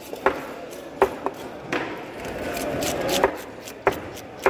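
Large knife chopping barracuda steaks on a cutting board: about six sharp knocks of the blade striking the board at uneven intervals.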